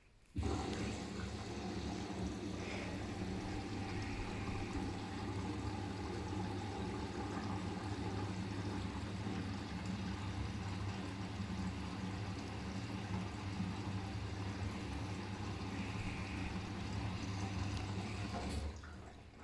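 Siemens iQ500 washing machine moving water in its final rinse: a steady rush of water over a low hum, which starts suddenly and stops about a second before the end.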